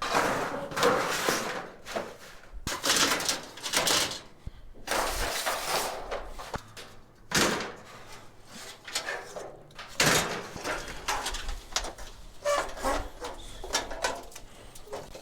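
Scrap metal being handled and loaded: a run of irregular clattering, scraping and knocking noises, each lasting up to about a second, with short pauses between them.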